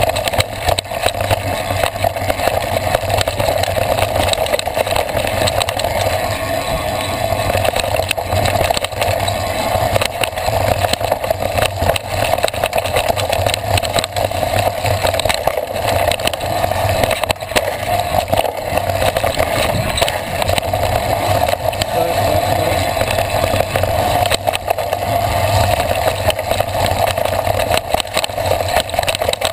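Mountain bike descending a rocky dirt trail, heard from a handlebar-mounted camera: a steady rushing noise with frequent rattles and knocks as the bike rolls over rocks and bumps.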